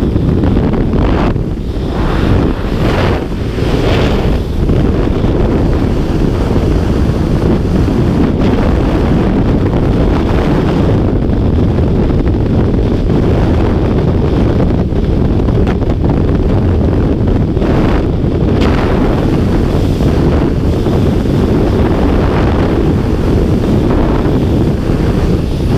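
Freefall airstream blasting over a skydiver-worn camera's microphone: a loud, steady low rush of wind noise, with a few brief gusts in the first few seconds.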